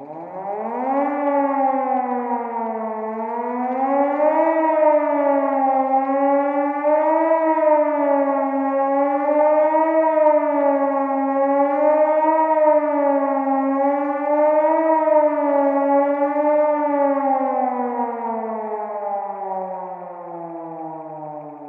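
Civil-defence-style warning siren. It winds up over the first second, then wails, rising and falling in pitch in slow cycles about every two and a half to three seconds, and near the end winds down with a steadily falling pitch as it fades.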